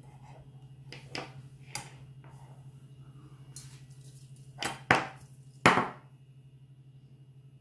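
Handling noise from a small steel remote-canister camping gas stove being set up: a few sharp metal clicks and knocks as its legs and pot supports are moved, the loudest about two-thirds of the way through, over a steady low hum.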